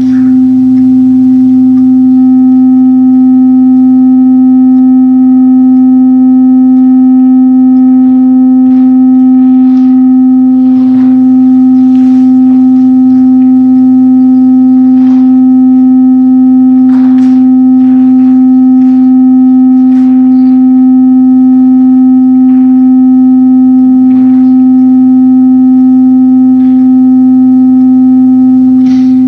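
Large frosted quartz crystal singing bowl sung by circling a mallet around its rim: one loud, steady, sustained tone with fainter higher overtones ringing above it, and faint ticks here and there.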